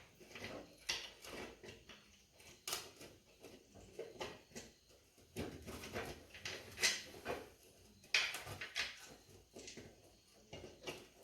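Irregular clinks, taps and scrapes of metal parts being handled as a spindle is set onto a steel lawn mower deck and its bolts fitted, with a few sharper knocks about seven and eight seconds in.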